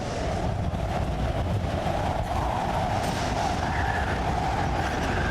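Storm sound effect: a steady rush of wind over a deep, continuous rumble.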